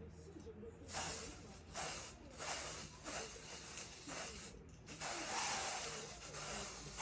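Aerosol can of lace tint spraying in several short hissing bursts, with a longer spray near the end, as the wig cap and lace are tinted to match skin tone.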